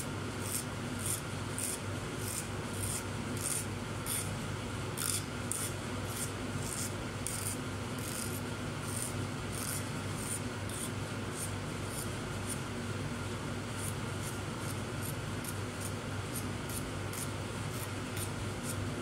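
Small knife blade scraping the skin off a cousa squash in short repeated strokes, about two a second, over a steady low hum.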